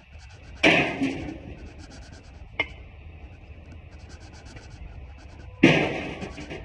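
Pieces of scrap metal thrown out of a truck bed crashing onto a scrap pile twice, about a second in and again near the end, each crash ringing out briefly, with one sharp clink in between.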